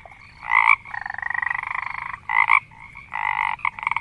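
Frog calling: short croaks alternating with longer, rapidly pulsed trills, the longest lasting over a second.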